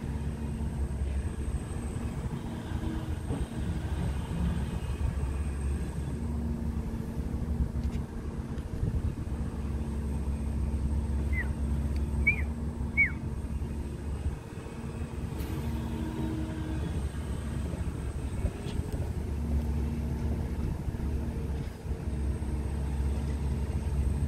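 A steady low rumble with no clear rise or fall, and three short, high, falling chirps about halfway through.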